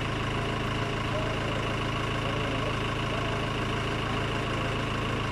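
Pickup truck engine idling steadily, with faint voices in the background.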